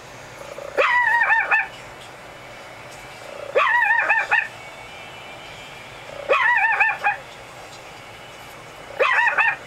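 Chihuahua puppy howling, played through a laptop's speakers: four short, high, wavering howls, about one every two and a half seconds.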